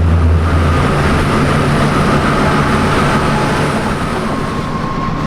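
Large intercity bus's diesel engine running at low speed while the bus is slowly maneuvered: a steady low drone that eases off about a second in, with a thin steady whine above it.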